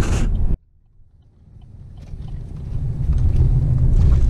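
Low, steady rumble of a pickup truck driving, heard from inside the cab. It cuts out abruptly about half a second in, then fades back up over the next two seconds.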